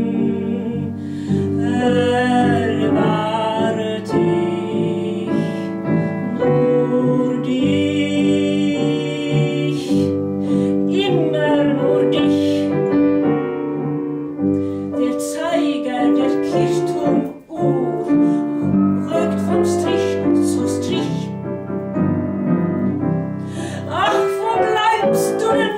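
A woman sings a 1930s German cabaret song to grand piano accompaniment, her voice rising and falling in long sung phrases over sustained piano chords, with a brief pause in the sound a little past halfway.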